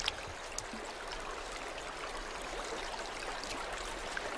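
Steady hiss of flowing stream water, with a few faint clicks.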